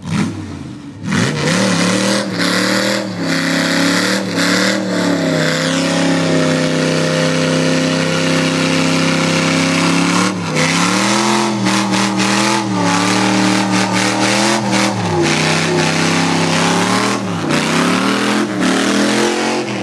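Rat rod's V8 revving hard through a burnout, its rear tyres spinning on the asphalt. The engine climbs to high revs about a second in and holds there, then dips and rises again several times in the second half.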